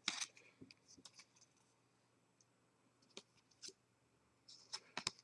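Faint clicks and light scrapes of trading cards being handled and flipped one behind another, a few scattered ticks over near silence.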